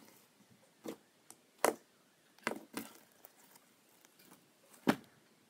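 Kinetic sand slime being squeezed, stretched and pressed on a table, giving about five sharp pops and slaps, the loudest about a second and a half in and near the end.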